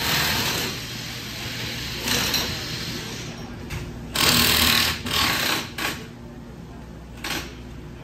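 A power tool run in short bursts of under a second each, the longest about four seconds in, over a steady low garage hum.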